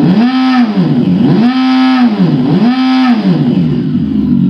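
Engine sound-effect module's speaker on a Super Soco electric motorcycle playing a synthetic petrol-engine sound. It is revved three times, the pitch rising and falling with each blip of the throttle, then it settles back to a steady idle.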